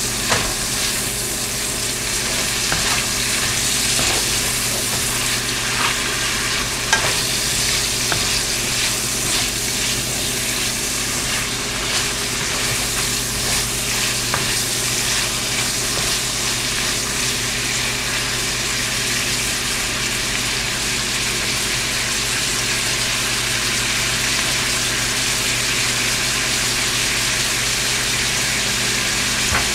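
Chunks of seasoned beef sizzling steadily in an oiled frying pan. A wooden spatula now and then scrapes and taps against the pan as the meat is stirred.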